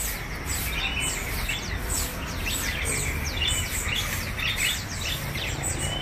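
Many small caged songbirds chirping at once. Their short, quick, falling chirps overlap one another over a steady low background rumble.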